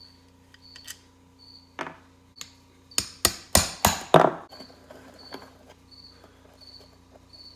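A few light clicks, then about five quick hammer blows in a row on a Honda CR250 engine's cases, knocking a part loose during teardown.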